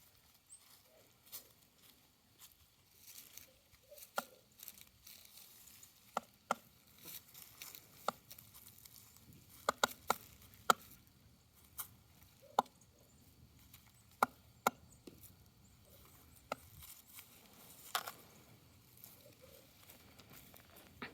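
Animals eating treats: irregular sharp clicks and taps, about one every second or so, some in quick pairs.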